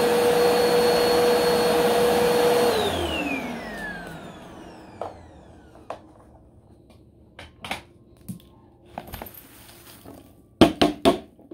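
Bagless upright vacuum cleaner running steadily, then switched off about three seconds in, its motor whine falling as it spins down. Scattered plastic clicks and knocks follow as the dust bin is detached, with a cluster of loud knocks near the end as the bin is emptied.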